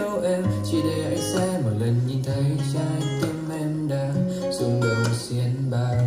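A guitar-led song played back through a Marshall Stockwell 2 portable Bluetooth speaker at 55% volume, heard about 1.5 m away in a room.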